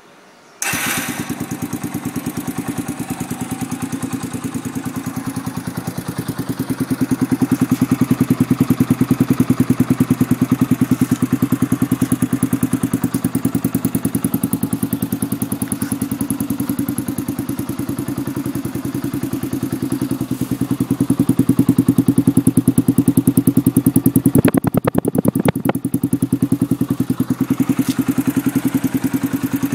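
Yamaha Factor motorcycle's single-cylinder engine running through a RONCAR aluminium aftermarket exhaust, with a steady, fast pulsing exhaust note. It cuts in abruptly about half a second in and grows louder for a few seconds twice, around a quarter of the way in and again past the two-thirds mark.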